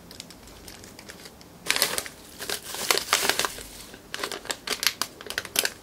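A plastic anti-static parts bag crinkling as it is handled and opened by hand. After a quiet start it begins about two seconds in and goes on as a string of short rustles and crackles.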